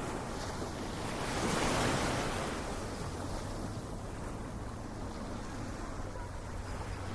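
Ocean waves: a steady wash of surf, with one wave swelling and breaking about two seconds in before the wash settles again.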